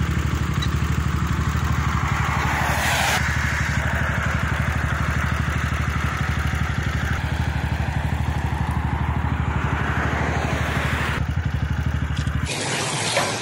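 A vehicle engine running steadily at an even speed, with a rushing noise over it. It cuts off abruptly near the end.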